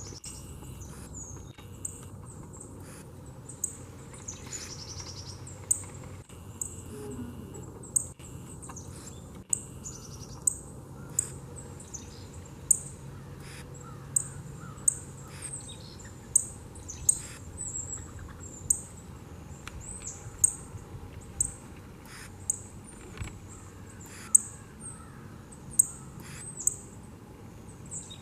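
Northern cardinals giving sharp, high chip calls, repeated irregularly about once or twice a second.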